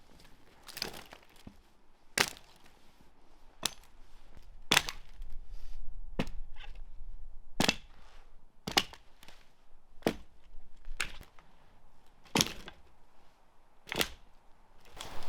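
Dry firewood being broken up: about ten sharp, separate cracks, roughly one every second or so, at an uneven pace.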